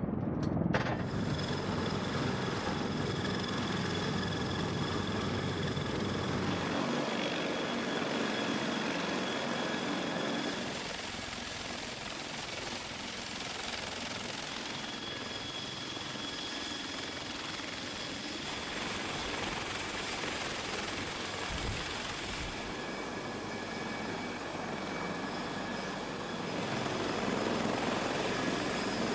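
Heavy-lift helicopter's turbine engines and rotor running, with a steady high whine over the rotor and engine noise; the level shifts a few times.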